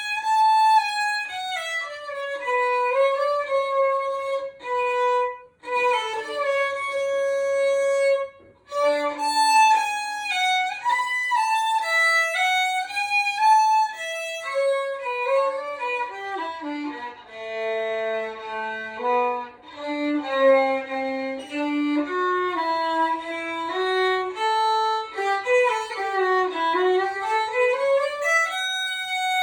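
Solo violin playing a melody, with two short breaks between phrases and a quick scale run down and back up near the end.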